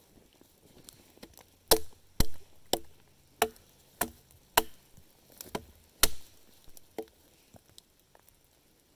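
Wooden baton striking wood: about nine sharp knocks, each with a short hollow woody ring, coming every half second to a second and fading out near the end.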